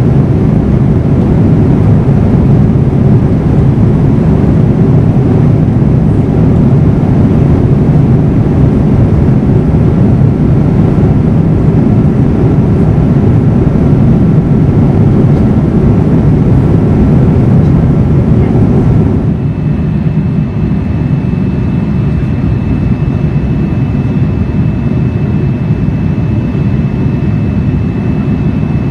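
Steady in-flight cabin noise of a Boeing 787-9 airliner, the low roar of jet engines and airflow heard from a window seat over the wing. About two-thirds of the way through it changes abruptly to a slightly quieter, duller drone with a faint steady high whine.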